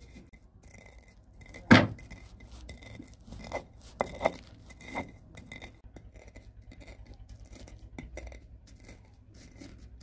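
Kitchenware handled during cooking: clinks, scrapes and small knocks. The loudest knock comes about two seconds in, and a few more follow around four to five seconds.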